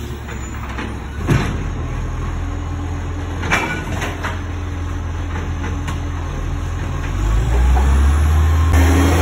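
Side-loader garbage truck's diesel engine running low and steady, then revving up about seven seconds in. Two sharp knocks sound in the first few seconds.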